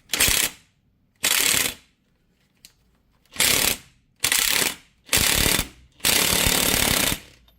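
Impact gun hammering in six short bursts, the last and longest about a second, turning a bearing press screw to push the universal-joint cups out of the axle yoke.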